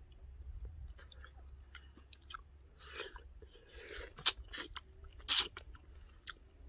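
A person eating kiwi fruit: soft chewing and wet mouth noises with scattered sharp clicks, the loudest about five seconds in.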